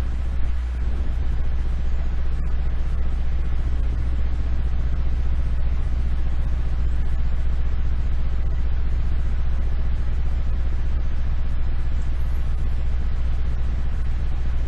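A steady low hum or rumble of background noise, with a faint click about two and a half seconds in.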